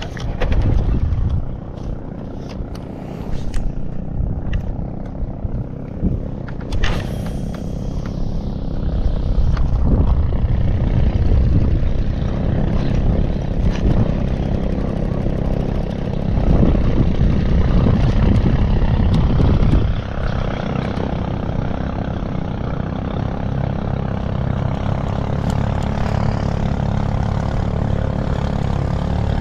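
A boat's engine runs with a steady low drone, its level rising and falling a little in the first two-thirds and then holding even from about two-thirds of the way in.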